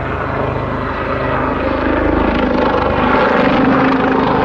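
Westland Lynx military helicopter flying overhead, its rotor beating steadily over the turbine sound, growing slightly louder.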